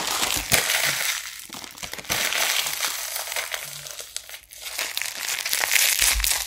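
Crinkling and crumpling of a trading-card pack wrapper: a dense run of crackles with a few brief lulls.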